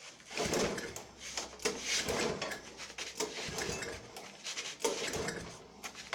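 Lawn mower's recoil starter cord being pulled several times, a rasping pull every second or so, with the engine turning over but not catching.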